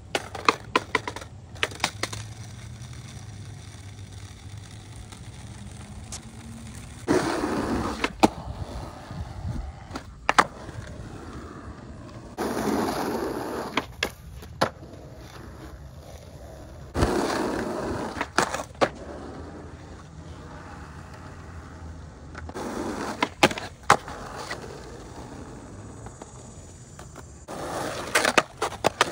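Skateboard riding on concrete, in several separate runs: stretches of wheels rolling, broken by sharp clacks of the board hitting the ground and the obstacles.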